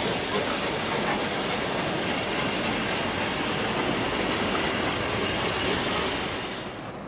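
Recorded sound of a real steam-hauled train on the move: a steady rushing noise that fades near the end.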